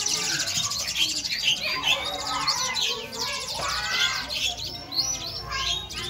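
Young Asian pied starling (jalak suren) chirping rapidly and repeatedly while it is hand-fed, short up-and-down notes one after another, over a steady high hiss.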